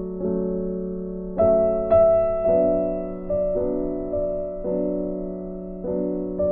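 Background music: soft piano notes struck and left to decay, with louder notes about one and a half to two seconds in.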